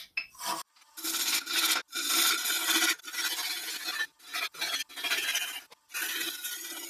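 Bowl gouge cutting the outside of a spinning wooden bowl blank on a lathe, turning away the old surface. The cut is a rough scraping, shearing noise that comes in several passes of a second or two each, with short breaks between them.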